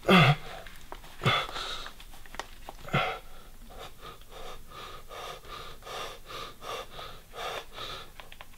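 A man gagged with tape over his mouth, breathing hard through his nose with muffled grunts. A falling groan comes right at the start, two sharper strained breaths follow, then quicker, softer panting.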